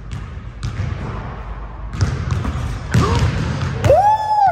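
Basketball dribbled on an indoor court: several sharp, echoing bounces at an uneven pace. Near the end come high squeaks of sneakers on the court floor.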